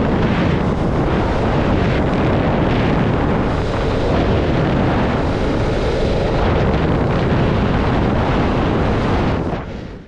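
Strong wind buffeting the microphone: a loud, steady rush that cuts off suddenly near the end.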